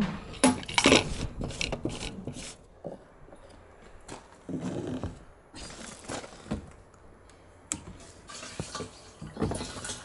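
Knocks and clatter of hard plastic as a fuel cap and transfer hose are handled at a pressure washer's fuel tank. There are several short stretches of gasoline splashing into the tank.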